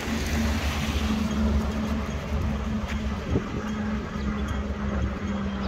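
Road traffic on a busy city street: the steady low rumble of passing vehicles with a steady engine hum.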